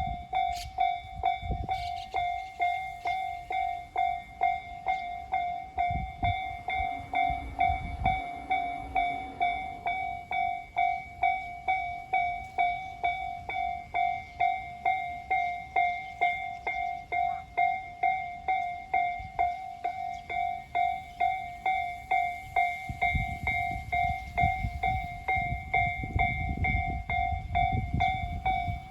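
Japanese electronic level-crossing warning bell of the Tojo type, ringing a steady repeated ding at about three strikes every two seconds. The low rumble of a passing train comes in briefly about six seconds in, and again from about 23 seconds on.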